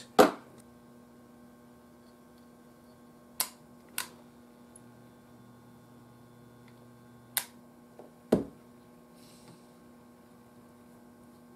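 Five sharp, separate clicks and taps of small hand tools working on a tube-radio chassis, over a steady low electrical hum.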